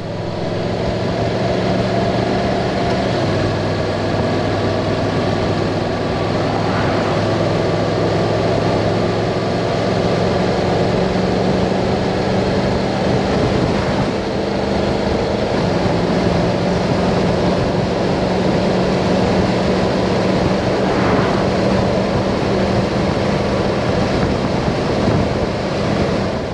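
A motorcycle running steadily at highway speed, its engine drone mixed with wind and road noise rushing past the bike-mounted camera.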